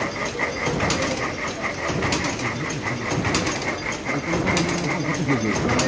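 Cam dobby weaving loom running: a steady mechanical clatter with a fast, even beat and a sharper knock roughly every second.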